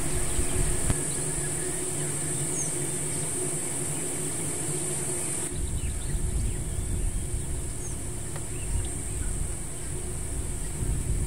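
Steady high-pitched insect chorus over the low hum of an idling vehicle engine; the background changes abruptly about halfway through.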